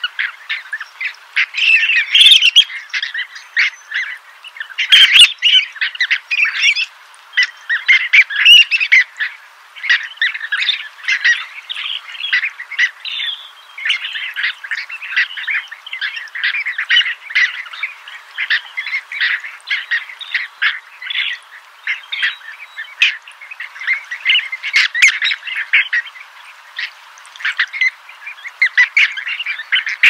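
A flock of birds calling all at once: a dense, unbroken chatter of short, rapid, overlapping high calls.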